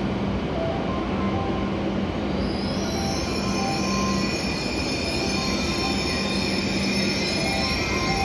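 JR East E7 series Shinkansen train rolling slowly along the platform as it brakes to a stop. A rumble runs throughout, and a high-pitched squeal of several steady tones sets in about two and a half seconds in and holds until the train stops.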